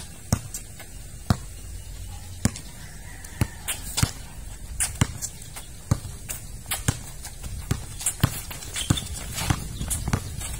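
Basketball dribbled on an outdoor concrete court: a string of sharp, irregular bounces, mixed with sneaker footsteps as the players jostle.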